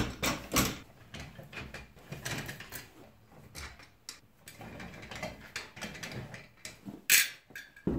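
Cross-shaped lug wrench working on the wheel bolts of a jacked-up car: scattered metallic clicks and scrapes, with one louder, sharper clank about seven seconds in.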